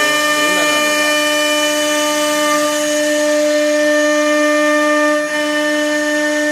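CNC router spindle cutting into MDF board, giving a steady high-pitched whine with a brief dip about five seconds in.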